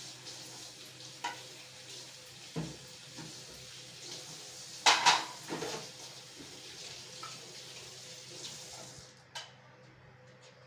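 Kitchen utensils scraping and clinking against dishes, with two louder ringing clinks about halfway through, over a steady hiss that stops near the end.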